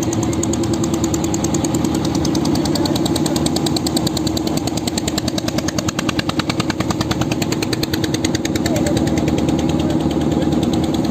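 Motorboat engine running steadily with a rapid, even knocking beat over a low hum.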